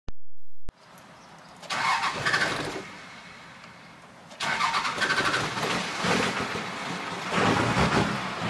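12-valve Cummins 5.9 L inline-six diesel being cranked on the starter in a hard start after running out of fuel. It comes in a short burst, pauses, then cranks continuously with pulsing and grows loudest near the end as it tries to fire.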